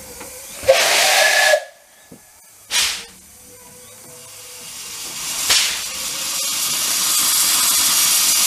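Narrow-gauge steam locomotive letting off steam: a loud burst of hiss about a second in and a short one near three seconds, then a steady hiss of escaping steam that grows louder through the second half.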